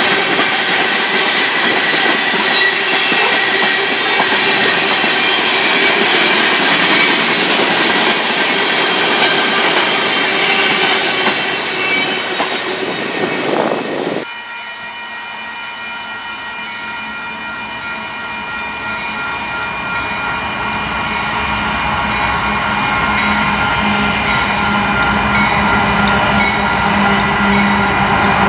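A freight train of tank cars rolling past at trackside. About halfway through, the sound cuts to a quieter scene in which Union Pacific diesel locomotives approach, their noise growing steadily louder under a set of steady high tones.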